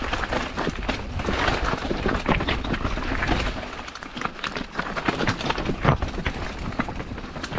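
Mountain bike rolling down a rocky trail: tyres crunching over loose stones and the bike clattering with many quick knocks. Wind rumbles on the microphone for the first few seconds.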